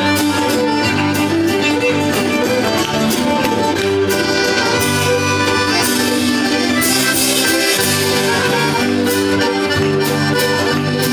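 Upbeat folk-style band music with a fiddle, a bass line and a steady drum beat.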